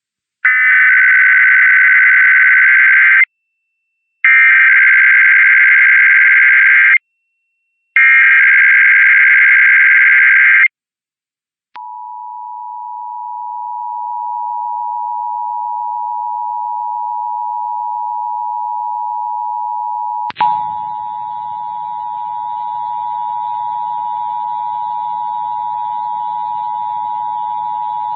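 Emergency Alert System test signal: three bursts of the SAME digital header, a harsh modem-like warble about three seconds long each with a second's gap between, then the EAS two-tone attention signal, a steady dual tone (853 and 960 Hz) held to the end. About twenty seconds in, a click, and faint hum and noise join under the tone.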